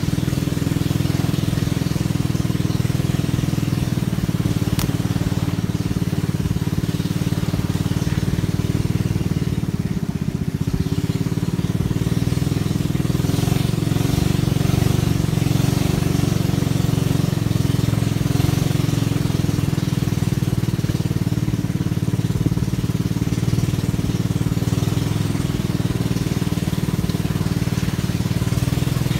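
Small boat engine running steadily at one even speed, a low, unchanging hum.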